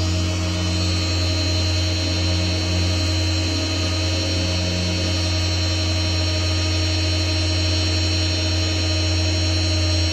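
Tow truck running beside the camera: a loud, steady low hum with a higher whine over it, which cuts off suddenly near the end.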